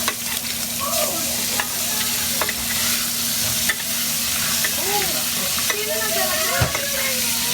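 Ribeye steak searing in a very hot pan, a steady loud sizzle, with a few short clicks scattered through it.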